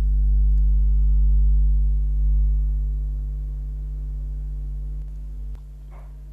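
Steady low electrical hum, a deep mains-type buzz with a few higher overtones. It drops sharply in level about five and a half seconds in.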